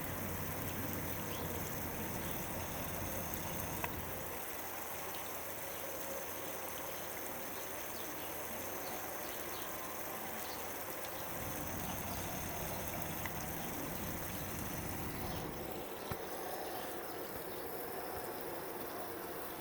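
1943 Sunbeam Rain King Model K-20 travelling sprinkler running: a steady hiss of water spray with a few faint clicks. A low hum under it drops away about four seconds in.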